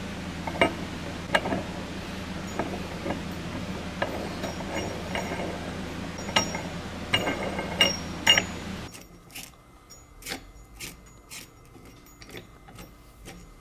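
Short metallic clicks and clinks from the parts of a tripod rifle rest being handled and adjusted, a dozen or so scattered through, over a steady background hum that drops away about nine seconds in.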